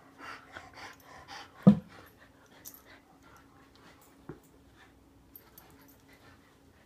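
Two dogs, an English Setter and a young Australian Shepherd mix, tussling in a tug-of-war: quick panting and scuffling in the first couple of seconds, a sharp thump a little under two seconds in, and a softer one about four seconds in.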